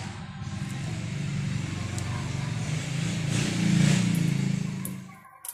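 A motor vehicle's engine passing by, growing louder to a peak about four seconds in and then fading away.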